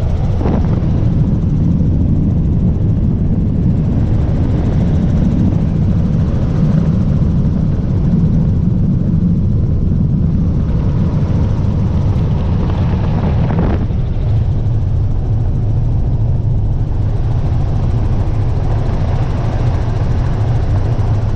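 Helicopter in flight: a loud, steady low drone of rotor and engine, broken by a brief click twice, near the start and about two-thirds of the way through.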